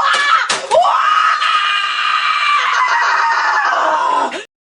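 A boy screaming in a tantrum: two short shrieks, then one long held scream that sinks in pitch near the end and cuts off abruptly.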